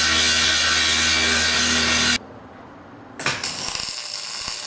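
Angle grinder grinding steel, grinding down a botched weld, running steadily and then shut off abruptly about two seconds in. About a second later a MIG welder's arc starts crackling.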